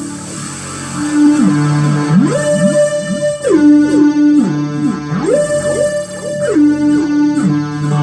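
Korg Pa50SD arranger keyboard playing a synth lead with portamento: the notes glide up and down an octave at a time in a repeating pattern about every two seconds. It comes in about a second in, over a fading chord.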